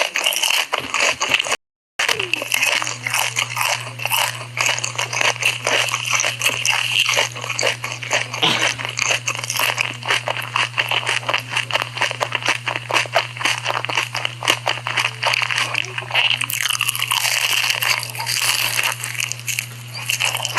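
Close-miked ASMR eating sounds: rapid, continuous crunching chews of crispy fried corn dogs, with a steady low hum underneath from about two seconds in, after a brief dropout.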